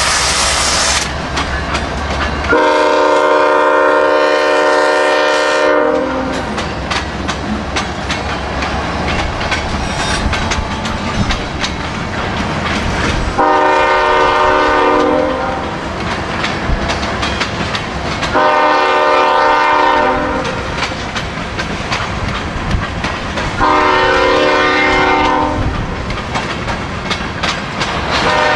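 A diesel locomotive's multi-chime air horn sounds four blasts several seconds apart, the first the longest, with a fifth starting at the very end. Throughout, a train's wheels click steadily and rapidly on the rails.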